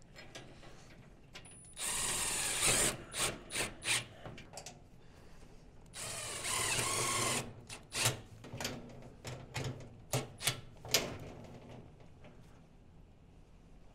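Cordless drill/driver on a metal stovepipe, run in two pulls of about a second each with a steady motor whine. These are followed by a string of short trigger bursts.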